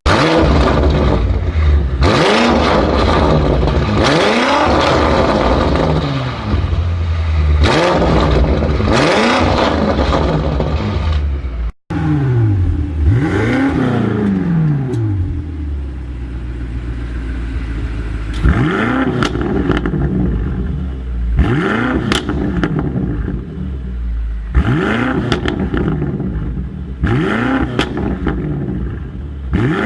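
F90 BMW M5's 4.4-litre twin-turbo V8 revved repeatedly through an aftermarket exhaust, each blip rising and falling in pitch. About twelve seconds in the sound cuts off abruptly and resumes with another run of spaced-out revs.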